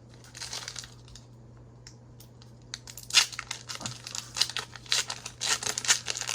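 Foil wrapper of a Pokémon booster pack being torn open and crinkled: a short rustle, then from about three seconds in a run of sharp crackles.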